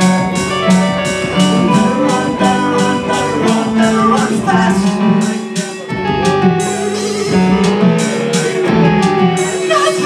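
Live new wave rock band playing: synthesizer, electric guitar and electric bass over a drum machine ticking about four times a second.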